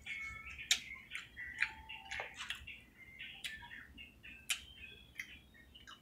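A small bird chirping and twittering in short, quick calls, with scattered sharp clicks.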